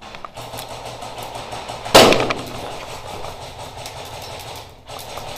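Airsoft gunfire: scattered faint sharp shots throughout, and one loud bang about two seconds in that dies away over about half a second.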